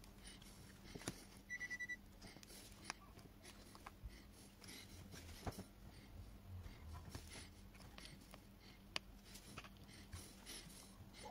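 Faint scraping and tapping of a tool working on a washing machine's control circuit board, over a steady low hum. A quick run of short high beeps comes about one and a half seconds in.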